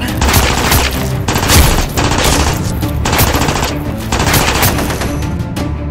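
Machine-gun fire sound effect in a string of rapid bursts, about one burst a second, over background music.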